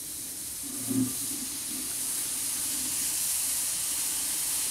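Oxy-acetylene welding torch's small flame hissing steadily on thin sheet steel as it melts a puddle along the seam, slowly growing a little louder.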